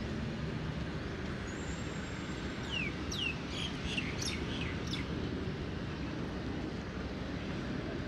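Steady low outdoor din of distant engines and wind, with a bird giving a string of quick, falling chirps from about two and a half to five seconds in.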